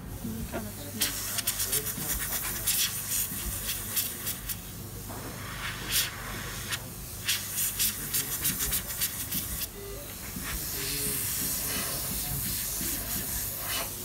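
Compressed air blowing from a hand-held blow gun on an air hose: rapid short bursts of hiss for most of the first ten seconds, then a steadier continuous hiss near the end.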